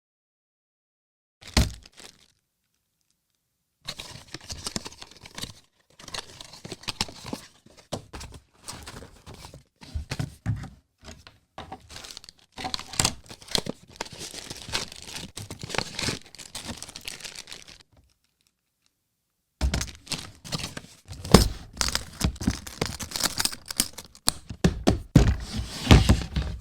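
Unboxing handling noise: packaging crinkling and tearing, with many sharp clicks and thunks as the box and its parts are handled. The sound drops to dead silence twice, just after the start and for a couple of seconds after the middle, then the handling comes back louder near the end.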